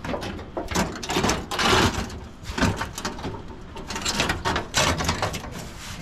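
Rough scraping and shuffling of a heavy slab cover being slid and settled over a stone fire pit, in irregular bursts.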